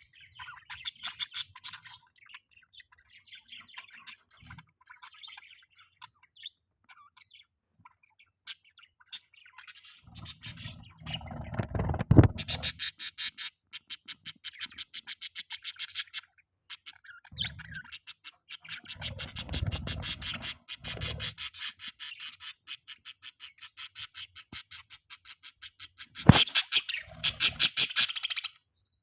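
Budgerigars chirping and chattering, breaking into long runs of rapid, evenly repeated chirps in the second half. A few low muffled bumps are mixed in.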